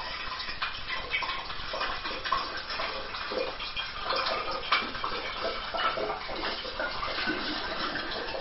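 Sulphite disinfecting solution poured from a glass swing-top bottle through a plastic funnel into another glass bottle, running and splashing unevenly with many small irregular clicks and gurgles.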